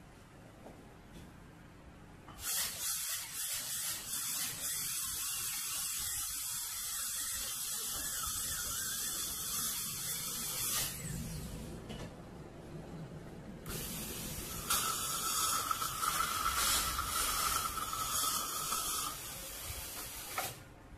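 High-speed dental handpiece running with its air-water spray, heard as a loud hiss in two stretches of several seconds each, with a steady whine in the second, while the tooth is opened for a root canal.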